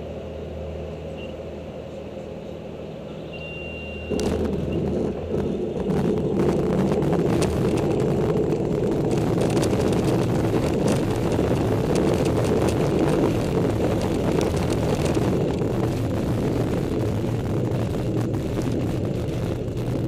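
Inside the cabin of a Cirrus light aircraft landing: the piston engine runs steadily at low throttle, then about four seconds in the wheels touch down and a loud, rough rumble with rattles and knocks from the landing gear rolling on the runway carries on through the rollout.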